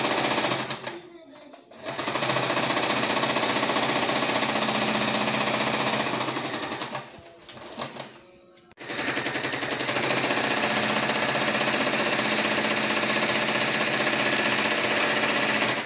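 Portable electric Wonder Stitch sewing machine stitching at a steady fast rate in three runs. It stops briefly about a second in and again for about two seconds near the middle while the fabric is turned.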